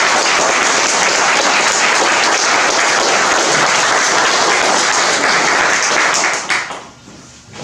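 Audience applause from a seated crowd in a room, steady and dense, thinning out to a few scattered claps about six and a half seconds in.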